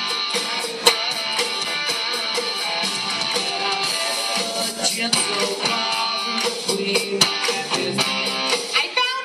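Live rock band playing an upbeat honky-tonk tune, driven by strummed guitar, with sharp percussion hits through it.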